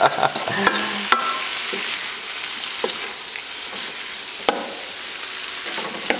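Mixed vegetables sizzling in a wok as they are stir-fried, a steady hiss broken by a few sharp knocks of the spatula against the pan.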